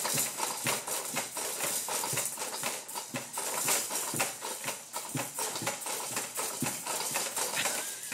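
A baby's stationary activity jumper rattling and clacking in a fast, steady rhythm as the baby bounces hard in the spring-hung seat, with the hanging toys shaking. One louder knock comes at the very end.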